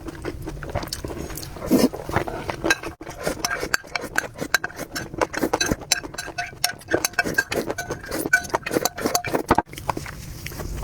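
Close-miked eating sounds: chewing and slurping of noodles, with quick wet mouth clicks and utensils clinking against a bowl.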